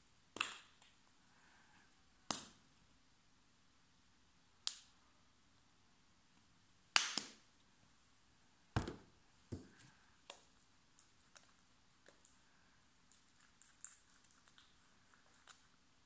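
Sharp clicks and knocks of small plastic bottles and a plastic container being handled and knocked against a tabletop, spaced a second or two apart. The loudest comes about seven seconds in, with a duller knock soon after and lighter clicks later.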